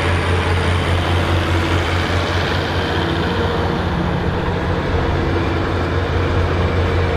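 Massey Ferguson tractor engine running steadily under load while ploughing, a strong, even low drone.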